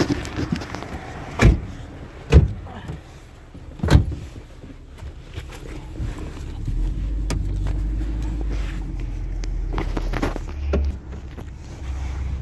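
Low rumble of a car's cabin while driving, which grows stronger about halfway through. Over it come several sharp knocks and bumps from the phone being handled, the loudest three in the first four seconds.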